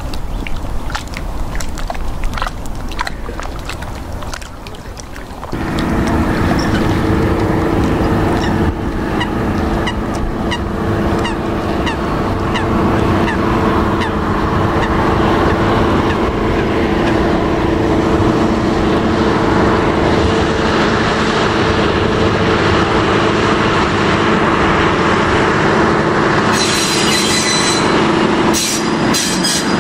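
From about five seconds in, the steady engine note of a diesel shunting locomotive as it approaches hauling a train of coal wagons. Geese honk at intervals through the first half.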